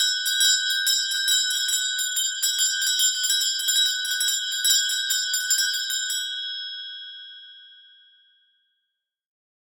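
A Christmas handbell shaken rapidly, its clapper striking several times a second with a bright, high ring. The shaking stops about six seconds in and the ring fades out over the next two seconds.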